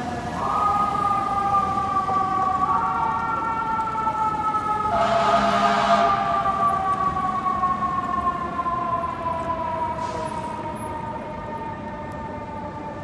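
Siren of a fire engine (a 2013 Seagrave Marauder II pumper) sounding as it drives away. Its pitch steps up twice in the first few seconds, then slides slowly down and fades, with a short burst of noise about five seconds in.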